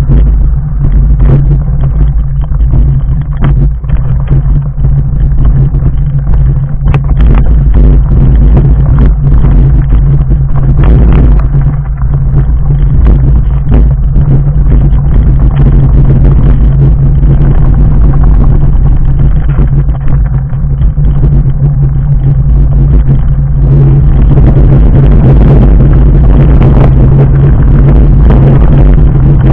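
Fat bike on 4-inch Schwalbe Jumbo Jim tyres rolling over a loose, rocky gravel track: a loud, steady low rumble with a constant rattle and clatter of stones and bike parts. It gets busier for the last few seconds.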